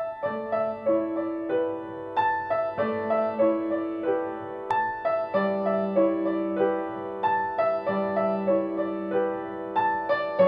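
Background music: gentle piano playing a repeating pattern of notes with a sustained lower line.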